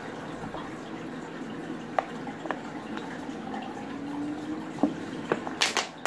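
Someone drinking from a plastic water bottle: a few sharp clicks of the plastic, then a louder crackle of the bottle near the end.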